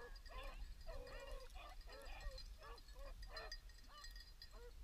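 Beagles baying on a rabbit chase, a quick run of short bawls and yelps, faint and overlapping.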